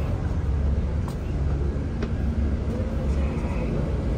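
Bus engine running with a steady low rumble, heard inside the bus cabin, with a couple of faint clicks.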